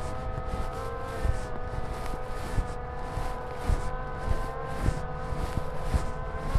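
A mountain bike being ridden: a steady hum that holds at one pitch, over a low rumble with irregular thumps and knocks as the bike and camera jolt over bumps.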